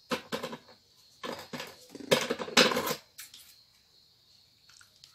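Close handling noise of scissors and satin ribbon: a clatter as the scissors are picked up, then crackly rustling of the ribbon being handled and cut, in three bursts over the first three seconds and a faint click near the end.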